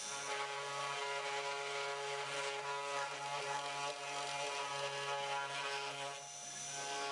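3018 PRO CNC router running: a steady motor whine over a hiss, its tone shifting a few times as the machine's moves change.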